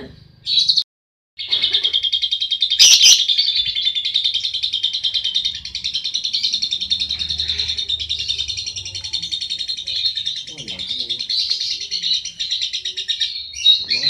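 Lovebird chattering: a short shrill call, a brief break, then one long unbroken run of rapid, high-pitched chatter lasting about twelve seconds that stops just before the end. There is a sharp click about three seconds in.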